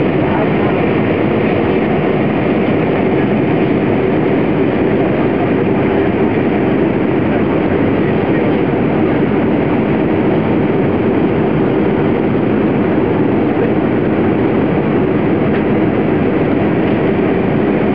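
Steady cabin noise of an Airbus A320 in flight, heard from a seat just ahead of the right IAE V2500 turbofan: an even, unchanging drone of engine and rushing air, heaviest in the low-middle range.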